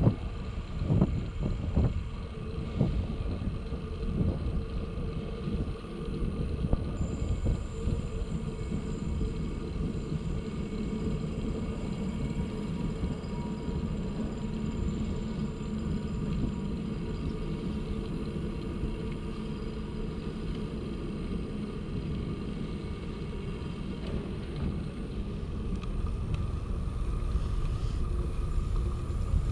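Steady low rumble of a bicycle rolling along a paved path, with a few knocks in the first three seconds.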